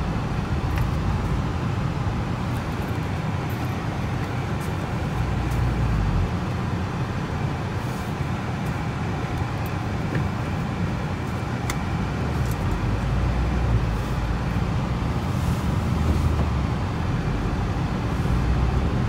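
Steady engine and road rumble of a Ford Transit camper van driving along, heard from inside the cab.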